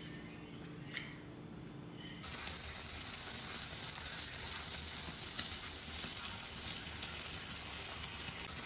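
A quiet stretch with a low hum and a single click about a second in, then an abrupt cut to food sizzling steadily in a hot pan.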